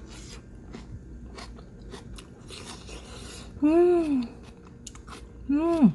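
A person chewing a mouthful of stir-fried squash with egg, with soft crunching clicks. Twice they hum 'mmm' in enjoyment, about three and a half seconds in and again near the end; the hums are the loudest sounds.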